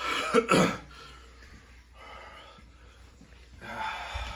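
A man coughs and clears his throat in two harsh bursts at the start, then breathes out heavily near the end. His throat is burning from the reaper- and scorpion-pepper chip, and he says it has swollen up.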